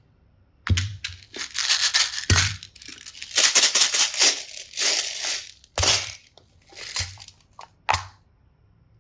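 Crinkling and crackling in irregular bursts as packaging is handled and crushed, with four short knocks among them.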